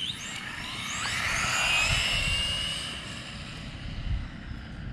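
Electric motors and geared drivetrains of two 4WD RC buggies, a Team Associated Reflex 14B and a WLToys A959B, whining at full throttle off a race start. The high whine climbs in pitch as they accelerate, swells to its loudest about two seconds in, then fades.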